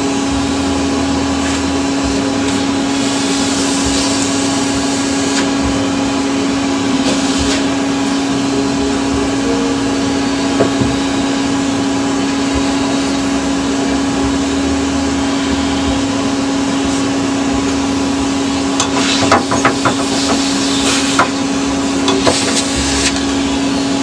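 Vacuum cleaner running with a steady hum while its nozzle sucks dirt off the parts of a disassembled fan motor. Short scraping and rattling sounds come near the end as the nozzle works over the metal parts.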